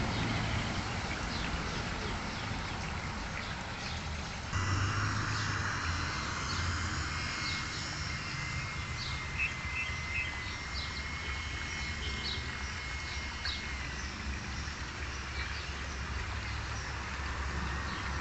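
Small birds chirping and tweeting over a low, steady rumble of distant traffic. A thin steady tone comes in about four seconds in and stops about ten seconds later.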